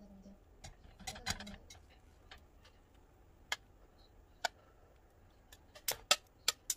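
Stainless steel tongs clicking and tapping against a ceramic plate and an earthenware pot while fried pieces are set into the tteokbokki. The sharp clicks are scattered: a small cluster about a second in, two single taps in the middle, and several quick ones close together near the end.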